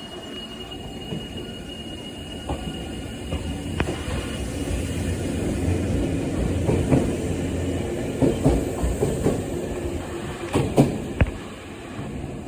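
Nankai 7100 series electric train passing without stopping: a low steady rumble that builds, with a quick run of wheel clacks over rail joints in the second half and a faint high squeal in the first few seconds.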